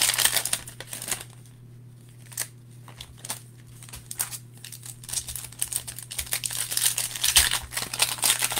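Foil trading-card pack wrappers being crinkled and torn open by hand: a loud burst of crinkling at the start, a quieter stretch with a few light taps, then dense crinkling and tearing again from about halfway on.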